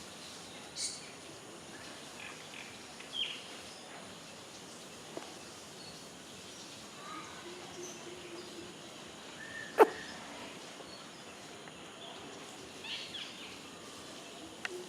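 A pet rabbit sneezing once, a single short sharp sound about ten seconds in, over a steady outdoor background with scattered bird chirps.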